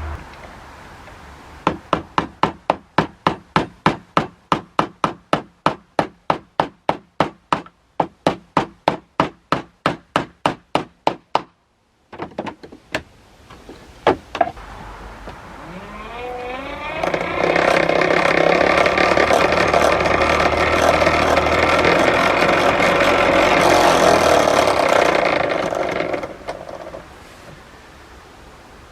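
A long run of sharp knocks in an even rhythm, about three a second. After a short pause and a couple of single knocks, the vintage Metabo grinder's motor spins up with a rising whine, runs steadily and loud for about nine seconds, then stops.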